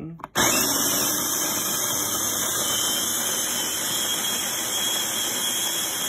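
Sboly electric conical burr coffee grinder starting with a sudden switch-on and grinding coffee beans steadily: motor whine over a dense grinding rattle, running a timed 2-cup dose.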